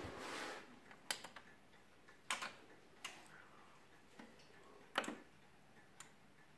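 A few sharp mechanical clicks, some doubled, spaced a second or more apart: the switches and relays of a Sony CD player and amplifier being powered up and operated.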